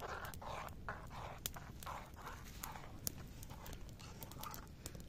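Wood fire crackling with irregular sharp pops, under softer scraping and knocking of a metal pan of boiling noodles being stirred and lifted off the fire.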